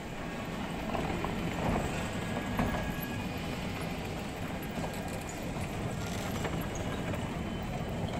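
Steady low rumbling background noise of a shopping-mall concourse, with no distinct events.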